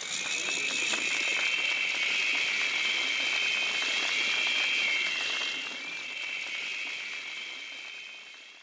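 A protest crowd applauding and blowing shrill whistles together after a speech, with the whistles forming a steady high tone over the clapping. The sound fades out near the end.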